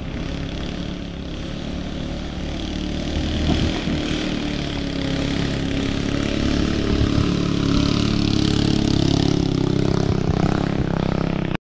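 Small motorboat's engine running at speed as it passes along the canal: a steady drone that grows louder about three and a half seconds in and stays loud, rising slightly in pitch near the end.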